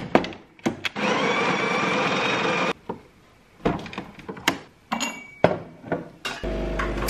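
An espresso machine's built-in coffee grinder runs for about two seconds, grinding into the portafilter. Then come several clacks and knocks as the portafilter is tamped and locked into the group head. Near the end the machine's pump starts with a steady hum.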